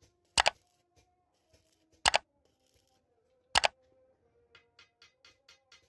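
Metalwork on a welded steering part: three short, loud, sharp cracks about a second and a half apart, then light ticking or tapping at about four a second starting near the end.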